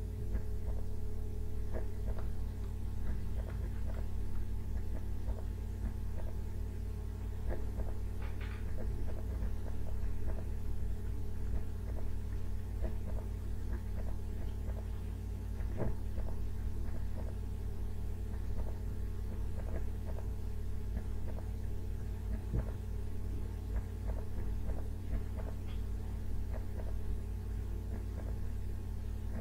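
Steady low electrical hum with many irregular light ticks and scratches: a stylus tapping and drawing on a tablet as small scalloped shapes are sketched.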